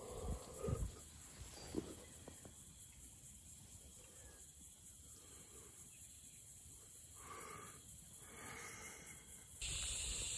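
A few soft knocks and rustles of the camera being handled and moved in the first two seconds, then near silence. Near the end a steady high hiss cuts in suddenly.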